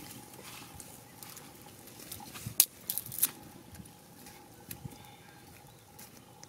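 Dry grass stalks and thin twigs rustling and crackling as they are handled over a small, freshly lit smoky fire, with a few sharp snaps about two and a half to three seconds in. A faint steady tone runs underneath.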